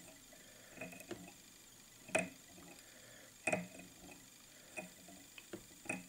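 Scattered light clicks and taps of hands and fly-tying tools at the vise as dubbing is wound onto the hook, a few a second at most, the sharpest about two seconds in and again about three and a half seconds in.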